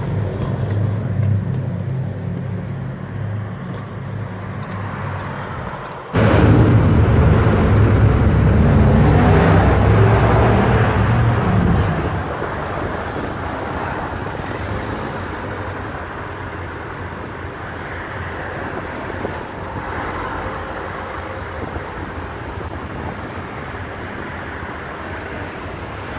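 Sport motorcycle engine running steadily just after a push-start. A sudden cut about six seconds in brings a much louder, rougher stretch of engine noise lasting about six seconds, which then settles into a quieter, steady running sound.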